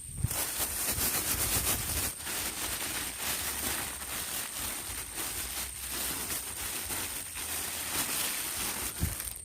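Irregular rustling and crackling as the shrimp bait of grated coconut dregs and seasoning is handled and worked by hand, with a steady thin high tone behind it.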